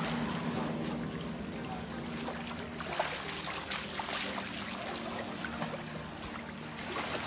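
Water splashing and trickling in an irregular patter, over a low steady hum.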